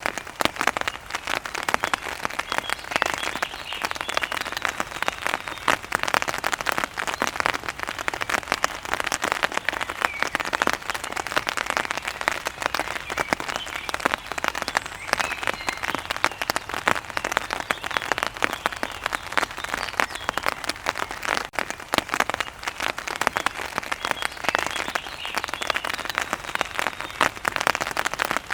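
Rain falling on an umbrella: a dense, steady patter of drops ticking on the taut fabric canopy.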